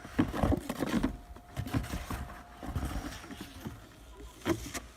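Snow being dug and crunched, with irregular knocks and thumps.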